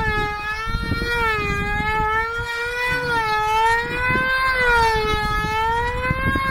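F2D control-line combat model's small two-stroke engine running flat out as a high-pitched whine. Its pitch rises and falls in a slow, regular wave as the model circles the pilot on its lines.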